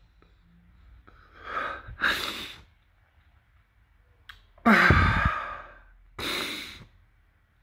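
A man crying in grief without words: several heavy breaths, the loudest a sigh with some voice in it about five seconds in.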